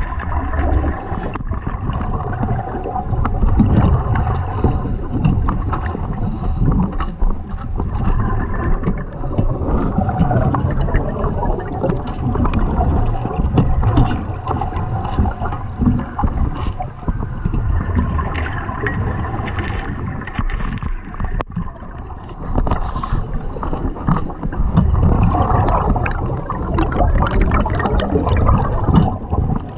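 Underwater noise of a scuba diver's breathing: rushing, gurgling exhaust bubbles that swell and ease every few seconds, with scattered sharp clicks throughout.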